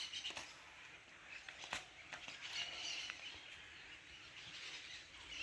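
Faint birds chirping in the background, with a light click a little under two seconds in.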